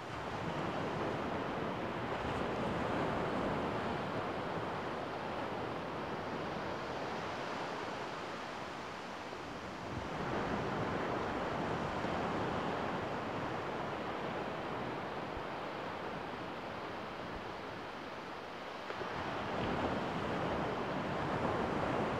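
Gentle surf washing onto a sandy beach, a steady rush of water that swells and eases in slow surges, three times over.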